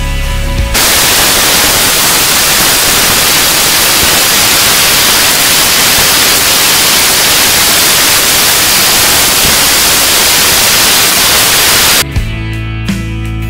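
Loud, steady static-like rushing noise, even across all pitches. It cuts in abruptly about a second in, in place of rock music, and cuts off abruptly near the end, when the music with guitar returns.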